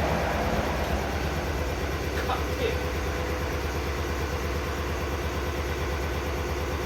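An engine idling steadily with a low, even drone. A couple of faint light clicks come a little after two seconds in.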